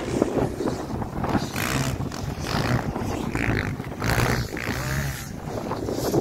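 Dirt bike engines revving and passing by, their pitch rising and falling several times.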